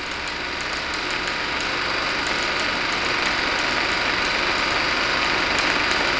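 Steady rushing noise with faint, scattered crackle, from the playback of an old film with no narration over it. It grows slightly louder over the first couple of seconds.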